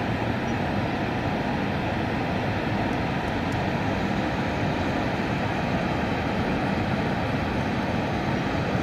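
Steady, unbroken rushing roar of Niagara Falls, the Horseshoe Falls heard from high above, holding an even level throughout.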